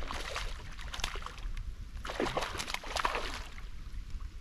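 Water splashing and sloshing in irregular bursts as a hooked tench thrashes at the surface; the longest burst comes from about two seconds in.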